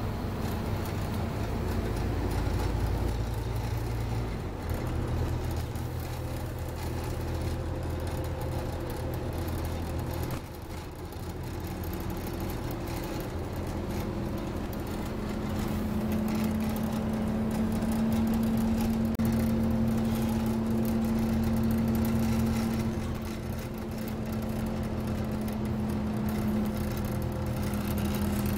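Scania OmniCity double-decker bus heard on board while moving: its diesel engine and drivetrain run steadily with road noise, dipping briefly about ten seconds in. From about halfway a steady drone grows loud and eases off a few seconds before the end.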